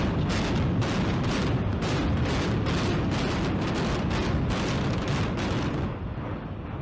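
Building implosion: a rapid string of sharp demolition-charge cracks, about three a second, over a continuous deep rumble, fading off near the end.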